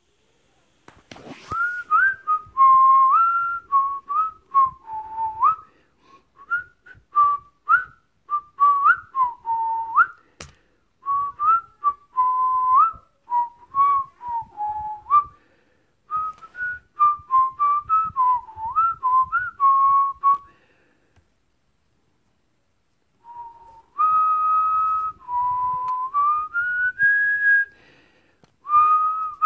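A person whistling a tune in short notes with pitch slides, pausing for a couple of seconds about two-thirds of the way through. Faint knocks and taps run underneath, with one sharp click about ten seconds in.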